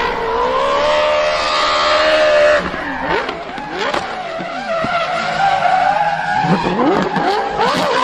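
Toyota GT86 drift car sliding sideways: the engine revs high and holds for a couple of seconds, then swings up and down quickly as the throttle is worked, over the hiss and squeal of the spinning rear tyres skidding.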